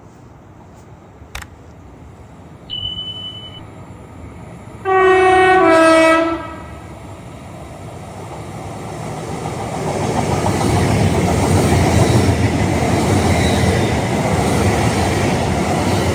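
Train sounding a two-tone horn: a higher note, then a lower one, about a second and a half in all. The train then passes at speed, its rumble and rush of wheels on rails building and staying loud.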